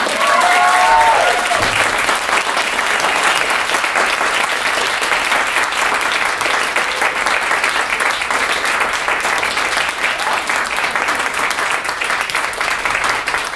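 Audience applauding steadily, with a brief whooping cheer near the start.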